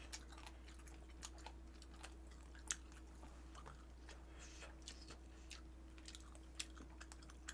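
Faint chewing and small scattered clicks of people eating with chopsticks, over a low steady hum.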